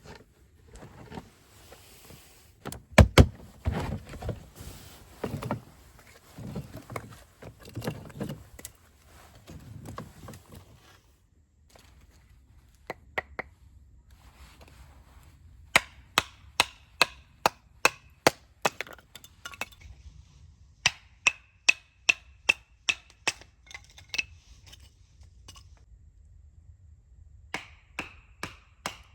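Firewood being chopped: blows of a blade into wood. Heavier knocks and thuds come first. Then runs of sharp, evenly spaced strikes, about two to three a second, many with a brief ring.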